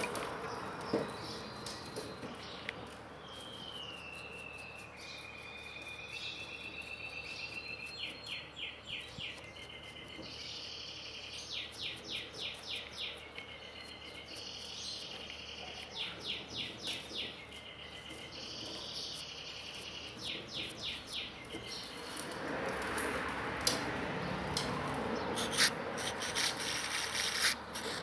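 A songbird singing repeated phrases of whistled notes and fast trills. In the last several seconds a scrubbing, rubbing noise comes up as the small chainsaw carburetor parts are cleaned by hand.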